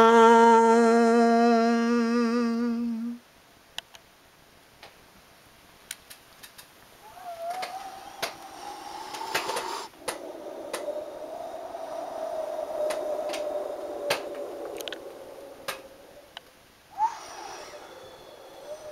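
A man humming one long, steady note that fades and stops about three seconds in. After it come faint scattered clicks and a quiet wavering tone, with a sharper click near the end.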